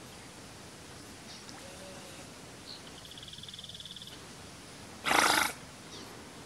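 Giant otter giving one short, loud, breathy snort about five seconds in: the explosive alarm snort it makes when it raises its head to watch an intruder.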